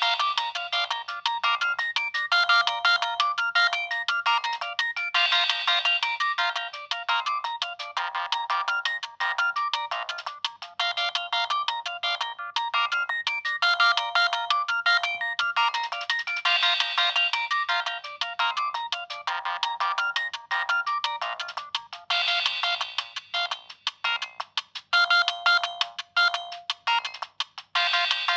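A Siemens C65 mobile phone plays one of its stock ringtones through its small loudspeaker: a fast electronic melody of several notes at once, with no bass, repeating its phrase over and over.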